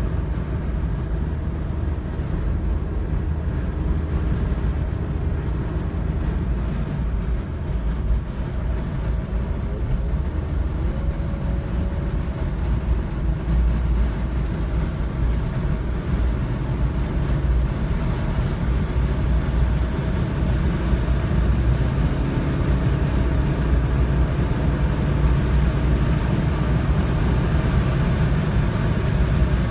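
Car engine and road noise heard from inside the cabin while driving at speed: a steady low rumble, with the engine note shifting a little now and then.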